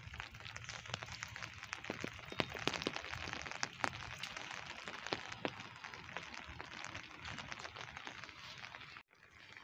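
Rain pattering, with many irregular sharp drop ticks over a steady hiss and a low rumble underneath. The sound breaks off for an instant near the end.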